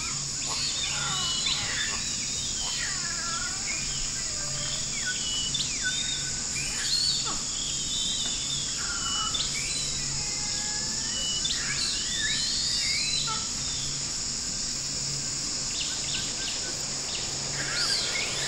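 Jungle ambience: a steady high insect drone with many bird calls whistling and chirping over it, and a low pulsing hum underneath.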